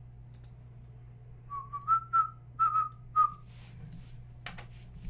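A person whistling a short run of about six clear notes, slightly rising, then stopping. A couple of sharp clicks follow near the end.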